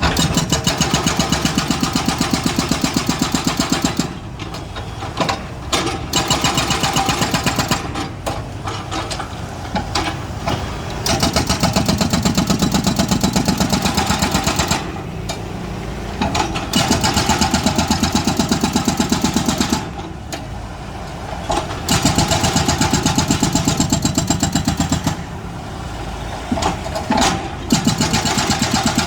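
Excavator's diesel engine running with a fast pulsing beat, pulling hard for a few seconds at a time and then easing off briefly, over and over, as the machine works through its digging cycles.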